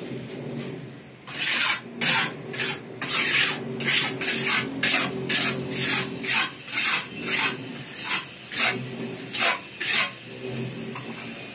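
A small hand trowel scraping back and forth over fresh cement mortar on a wall, smoothing it. It makes a rasping stroke about twice a second, starting about a second in and stopping shortly before the end.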